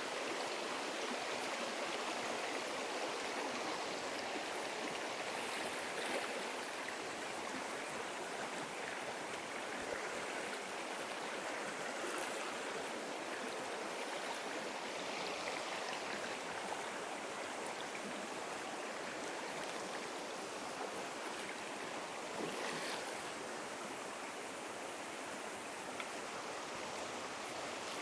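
Steady rushing of a small mountain trout stream flowing over rocks.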